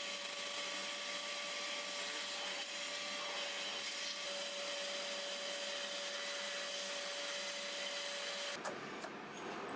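Vacuum cleaner running steadily with a constant whine, its hose held at a cordless drill bit to suck up the drilling swarf from engine-mount holes; it stops abruptly near the end.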